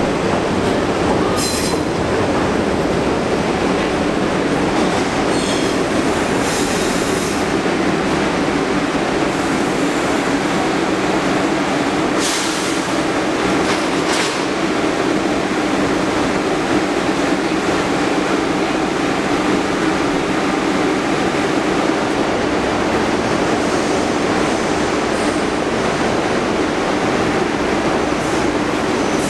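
NYC Subway R62A shuttle train pulling into the station and coming to a stop, with high-pitched wheel and brake squeals in the first half. It then stands at the platform with its equipment running, a steady loud rumble and hum.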